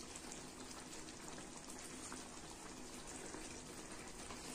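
Tamarind gravy simmering in a kadai over a gas flame: faint, steady fine bubbling and crackle as the thickened, oil-separated gravy cooks.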